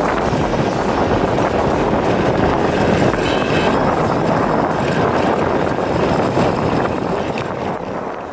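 Honda CD 70 motorcycle's small single-cylinder four-stroke engine running on the move, with wind rushing over the microphone. The sound fades away over the last couple of seconds.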